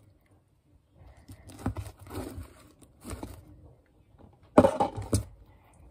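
Fluffy slime being squeezed, pulled and pressed on a tabletop: soft irregular squishing and tearing sounds with small clicks, loudest about four and a half seconds in.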